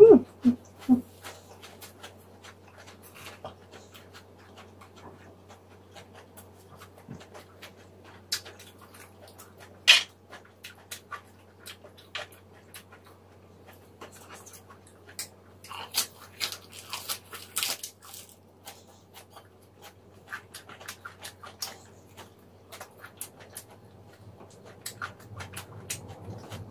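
Close-miked eating sounds: scattered wet clicks, lip smacks and crunches as sliced pork trotters and lettuce wraps are handled and chewed, with a denser run of crunching a little past the middle. A few short pitched sounds come right at the start.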